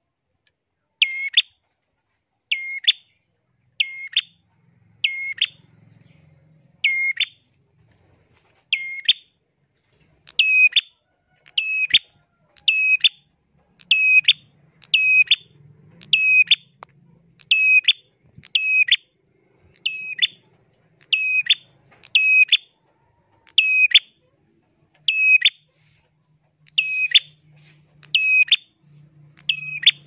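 Caged prenjak calling energetically: a loud, shrill note repeated about once a second, each one sweeping sharply down in pitch. The calls slow briefly about a third of the way in, then keep coming steadily.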